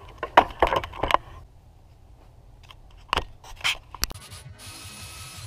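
A run of sharp knocks and clicks from tools or parts being handled around a car engine, in bunches about a second in and about three seconds in, with one sharp click just after four seconds. A brief steady hiss comes near the end.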